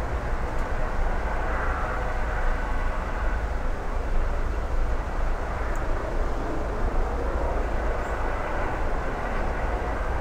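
Air-ambulance helicopter hovering low and settling toward the ground, its rotor and engines giving a steady noise with a deep rumble underneath.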